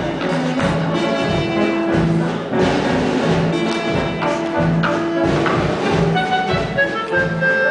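Musical-theatre pit band playing an instrumental passage with brass to the fore, in held notes over a steady beat.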